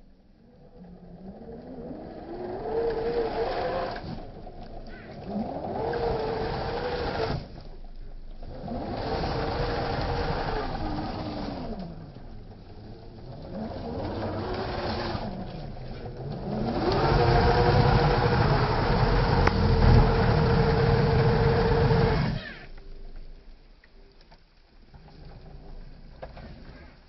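A small off-road car's engine revving hard in repeated surges, about five times: the pitch climbs, holds at the top, then drops away, the last surge held longest and loudest, as it works through mud. The engine noise stops abruptly near the end.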